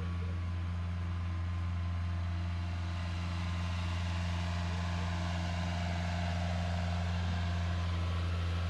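An engine running steadily at an even speed, giving a constant low hum.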